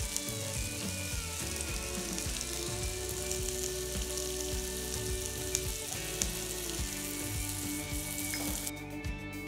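Chicken breast pieces sizzling in oil on a hot grill pan, a steady hiss with small pops. The hiss drops away near the end.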